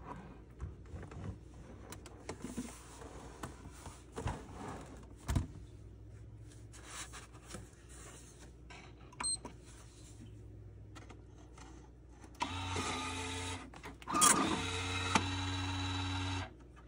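Lathem 7000E time clock taking in a time card and printing on it: small handling clicks and knocks, then its mechanism runs briefly, gives a sharp clack, and runs again for about two seconds before cutting off suddenly.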